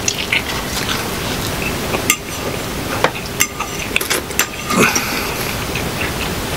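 Forks clinking and scraping against plates while two people eat pasta: a string of short, irregular clicks over a steady hiss.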